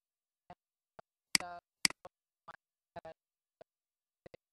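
Scattered short clicks and ticks from a computer mouse as it clicks and its scroll wheel turns, about ten in four seconds. The loudest is about a second and a half in.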